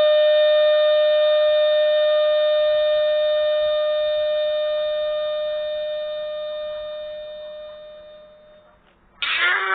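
Cartoon character's scream sound effect: one long scream held on a single pitch that fades away over its last few seconds. Near the end a harsh, noisy scream cuts in suddenly and loudly.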